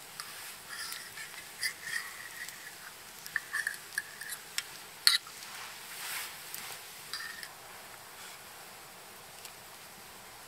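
A metal fork clicking and scraping against a small cast-iron skillet as a fried egg is turned in it over a campfire, with a sharp knock about five seconds in. Short high chirps come and go during the first seven seconds.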